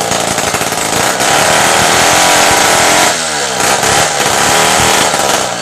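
Two-stroke gasoline chainsaw running at high revs while cutting through a tree trunk. About three seconds in, the engine note dips briefly and then climbs back up.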